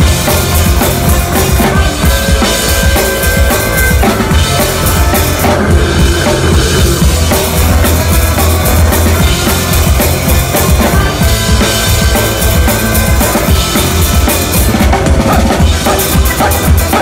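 Drum kit played hard and continuously, with kick drum, snare and cymbals, heard up close at the kit during a live band soundcheck, with a heavy low end and other held notes underneath.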